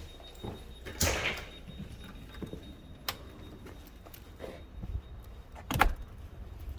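A door being opened and shut, with a rustle about a second in, a click around three seconds and a sharp knock near the end.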